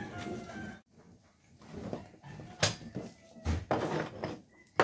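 A few scattered knocks and clicks, as of parts and tools being handled on a workbench, with quiet stretches between them.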